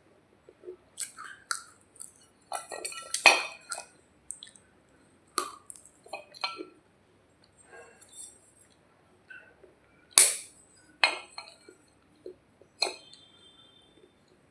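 Hard baked clay being crunched and snapped, giving sharp irregular cracks and crackles. The loudest snaps come about three seconds in and about ten seconds in.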